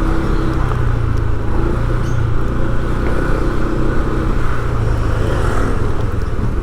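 Steady low drone of a motor vehicle's engine and road noise, heard from on board while moving along a street.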